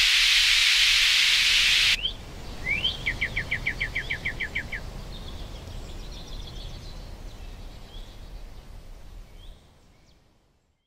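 A steady hiss cuts off sharply about two seconds in. A songbird then sings two rising chirps and a fast trill of about a dozen quick falling notes, followed by a fainter, higher trill and a few scattered chirps that fade out near the end.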